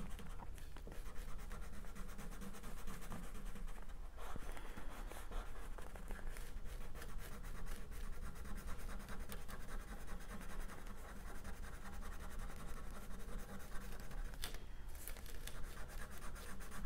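Purple crayon scribbling on paper, a steady scratching of back-and-forth coloring strokes with a couple of brief pauses.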